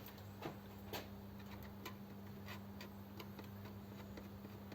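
Faint, irregular clicks and taps as a die holder and lathe tooling are handled and set in place, over a steady low electrical hum.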